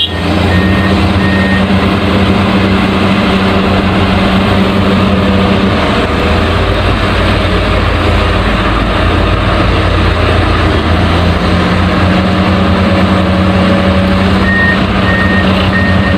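Heavy vehicle engine running steadily with a low hum. A reversing alarm beeps about twice a second near the start and again near the end.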